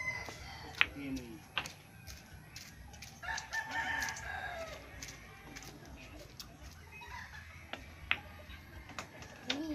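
A pool cue strikes the cue ball sharply about a second in, followed by a click of balls colliding. A rooster crows in the middle, and a few more ball clicks come near the end.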